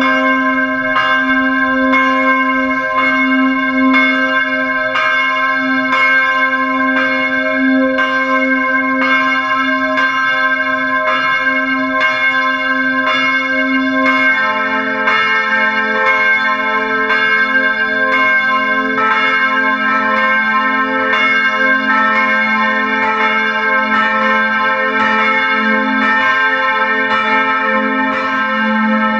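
Grassmayr-cast bronze church bells of the People's Salvation Cathedral ringing. At first a single bell strikes about once a second, each stroke ringing on into the next. About halfway through a second bell joins, and the strokes then come about twice a second.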